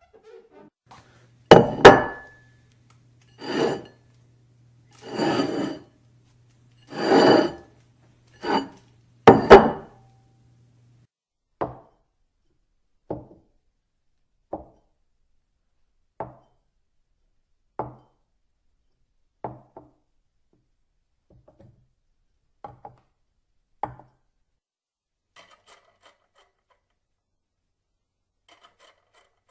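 A series of separate knocks and clinks on hard household objects. About six loud, longer hits come in the first ten seconds, followed by a dozen shorter, quieter ones spaced about a second and a half apart.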